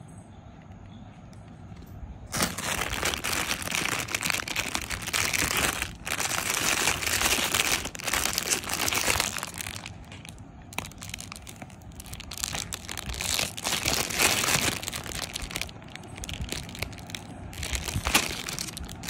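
Clear plastic bags crinkling as hands handle the bagged clip-on guide combs, starting about two seconds in. The crinkling comes in long loud spells at first and grows patchier and quieter in the second half.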